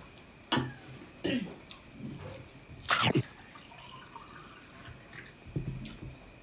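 Short sniffs and mouth noises from people eating, four in all, the loudest about three seconds in.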